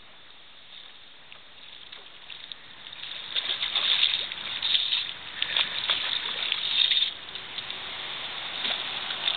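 Water splashing and sloshing in a run of short, irregular splashes that build about a third of the way in, are loudest through the middle and ease off near the end.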